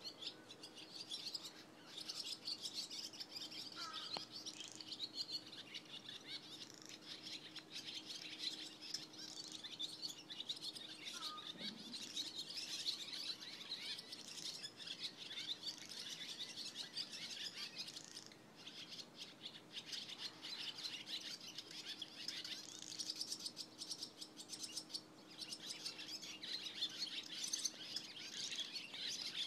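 Barn swallows twittering: a dense, continuous stream of high chirps with a couple of brief lulls.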